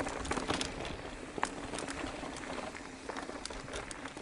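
Mountain bike rolling down a dirt trail: a steady rush of tyre and wind noise with frequent irregular clicks and rattles from the bike and gravel.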